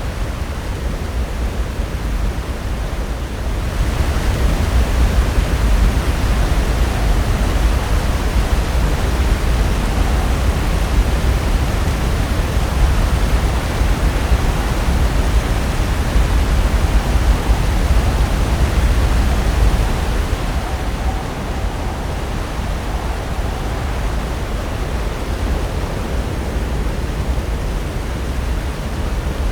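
Pacific Ocean surf breaking on the shore: a continuous rushing wash of waves that swells louder about four seconds in and eases back about two-thirds of the way through.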